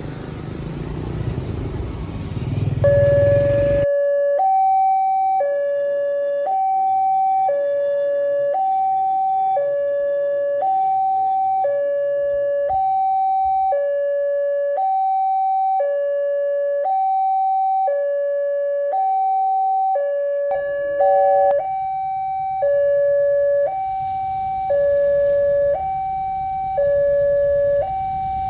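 Railway level-crossing warning alarm sounding: an electronic two-tone signal that alternates between a lower and a higher tone, each held about a second, over and over. Road traffic noise is heard at the start and cuts off a few seconds in. Near the end a rising rush of noise grows as a train approaches.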